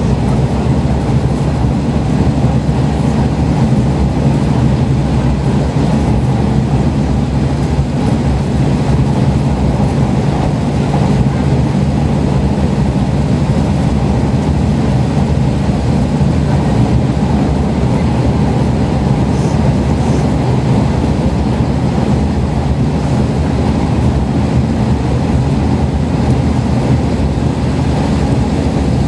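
Interior running noise of a Kashima Rinkai Railway diesel railcar travelling at steady speed: a constant low engine drone over the rolling noise of the wheels on the rails, with no change in speed.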